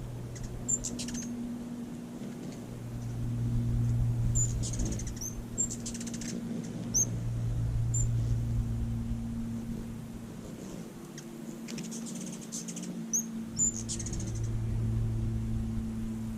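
Hummingbirds at a feeder: short, high, squeaky chip calls in scattered clusters over the low hum of their wings, which swells and fades as birds hover close and move off.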